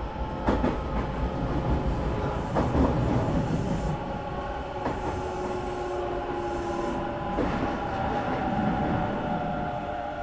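Hanshin 1000 series electric train running, heard from inside the car: a steady rumble of wheels on the rails under the whine of the traction motors, with a few sharp clacks over the rail joints.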